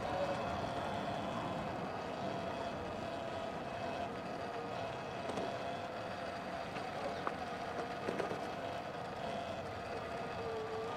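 Sur Ron X electric dirt bike's motor whining steadily while riding, over a steady rush of wind and tyre noise on dirt; the whine falls in pitch near the end as the bike slows.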